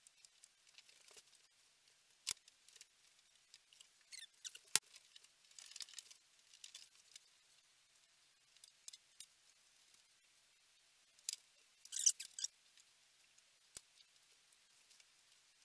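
Faint, scattered small clicks, taps and short rustles of hands handling and fitting 00 gauge model railway track on a wooden baseboard, with a sharper click now and then and a quick run of clicks about twelve seconds in.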